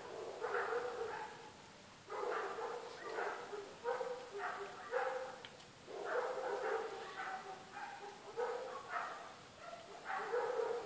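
Dog barking repeatedly, in short barks that come in irregular runs.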